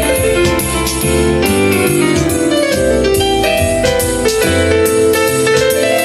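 Recorded music with piano over a bass line and drums, played back through a McIntosh C24 preamplifier and MC2500 power amplifier.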